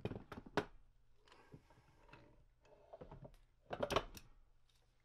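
Light metallic clicks and knocks as a gloved hand handles the hex-turret tailstock. A quick run of clicks at the start, a softer scraping stretch in the middle, and a denser cluster of clatter about four seconds in.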